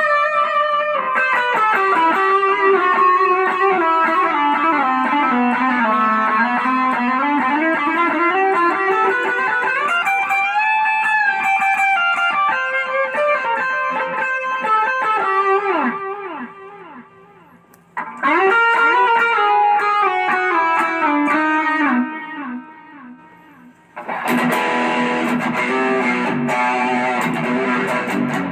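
Electric guitar played through a BOSS OD-20 Drive Zone overdrive/distortion pedal: single-note lead lines with long sliding falls and rises in pitch, broken by two brief pauses, then thick distorted strummed chords near the end.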